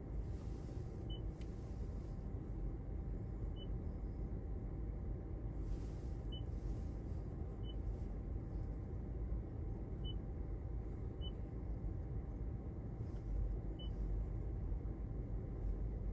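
Toyota RAV4 infotainment touchscreen giving short high beeps as menu items are tapped, seven times at uneven intervals of one to three seconds, over a steady low cabin rumble.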